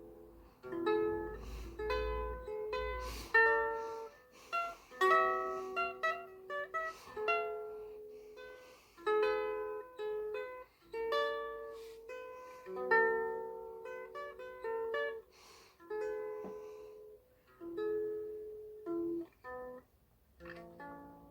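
3D-printed PLA mandore with five single Aquila Nylgut strings tuned to an open C chord, played by hand: a run of plucked notes mixed with strummed chords, each ringing and then fading.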